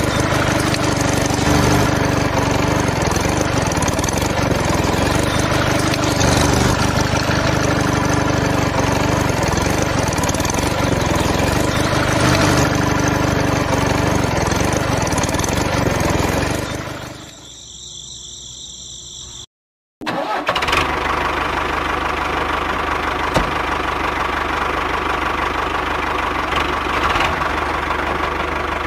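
Steady engine-like running of a miniature model engine driving a small belt-driven seed oil press. About 17 seconds in it fades out, there is a brief silence, and then a similar steady engine-like running sound starts again.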